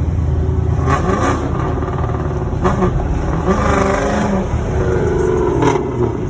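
A motor vehicle engine running with a steady low rumble. Its pitch rises and falls a few times between about three and six seconds in, and there are a few sharp clicks.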